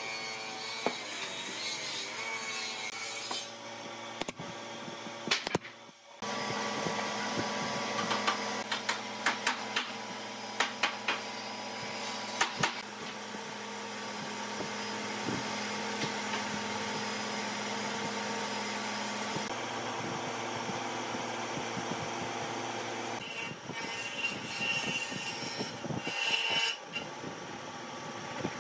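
Workshop power-tool noise: a steady machine hum with scattered clicks and knocks, changing abruptly several times between edited shots.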